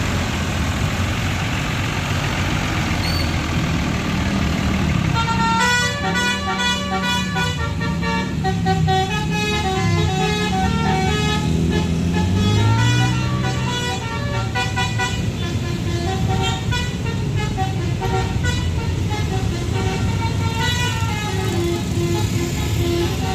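Telolet horn on a tourist bus playing a melody of stepping notes, beginning about five seconds in over the rumble of the vehicle.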